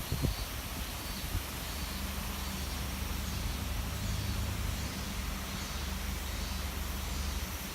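Steady rush of a river in spate, swollen and muddy from typhoon rain, with a deep rumble beneath. Faint high chirps repeat about every three-quarters of a second over it.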